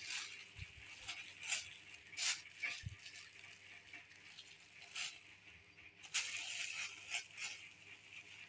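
A thin clear plastic bag crinkling and rustling in irregular bursts as a kitten grabs, bites and kicks at it. Two soft thumps come in the first three seconds.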